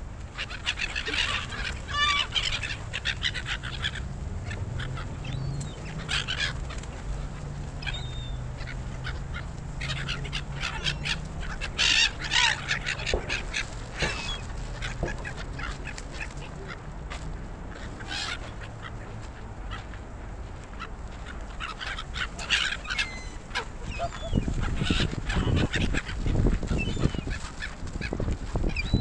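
A flock of gulls calling, many short harsh cries overlapping and coming in clusters, over a steady low rumble of wind on the microphone that grows gustier near the end.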